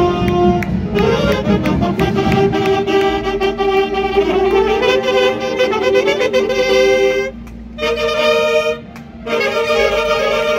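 A section of alto saxophones playing a tune together, with two brief pauses in the playing, about seven and nine seconds in.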